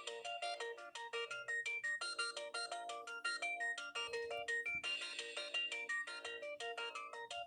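Siemens AL21 mobile phone playing a synthesized ringtone melody: a fast, continuous run of short, bright electronic notes with several pitches sounding together.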